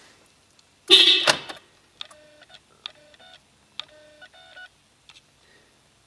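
Electronic tones from an aftermarket EasyGuard PKE push-button start system being activated: a loud short chirp about a second in, then two short runs of stepped beeps, like a little electronic melody.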